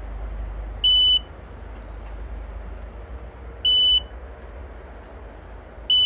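Three short, high electronic beeps about two and a half seconds apart, over a steady low rumble.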